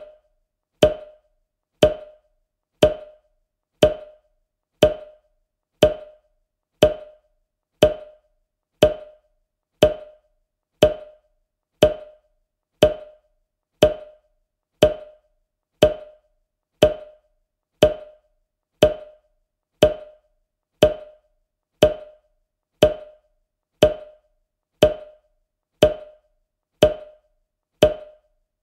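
Countdown timer's ticking sound effect: a short, hollow, wood-block-like tick exactly once a second, evenly spaced, each dying away quickly.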